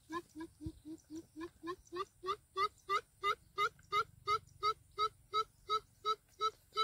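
A coucal calling a long series of deep, evenly spaced hoots, about three a second. The hoots dip slightly in pitch at first, then rise slowly and grow louder before the series stops at the end.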